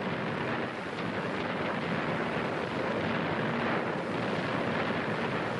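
A steady rushing roar of noise with no separate bangs, swelling gently at the start.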